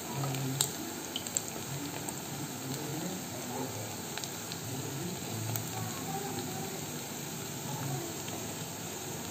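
Chhana kofta balls deep-frying in refined oil in an aluminium kadai: a steady sizzle, with a few faint clicks as a spoon turns them in the pan.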